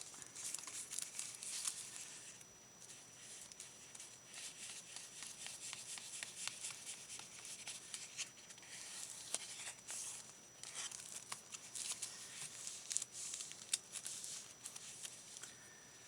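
Paper rustling and crinkling, with light ticks and scrapes, as a glued sheet is handled and pressed down onto a journal page.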